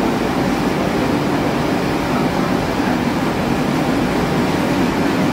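Steady, even industrial noise of cement plant machinery, with a faint steady hum above it.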